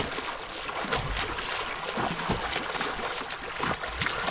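Sea water lapping and splashing irregularly over a steady hiss of water and wind, with a few soft low thuds.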